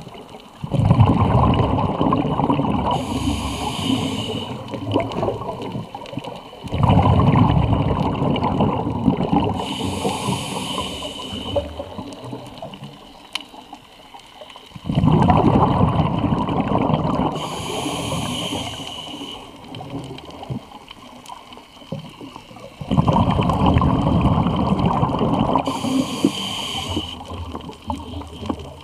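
Scuba diver breathing through a regulator underwater, four breaths about eight seconds apart: each a sudden loud burble of exhaled bubbles that dies away slowly, and a short hiss as air is drawn through the regulator.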